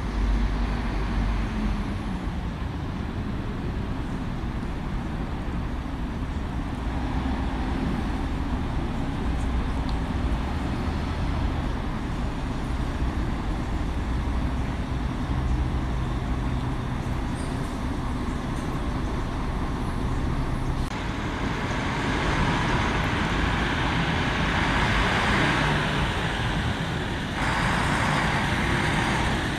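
Road vehicle engines running amid street traffic, a steady low drone that changes abruptly twice, about two-thirds of the way through and again near the end.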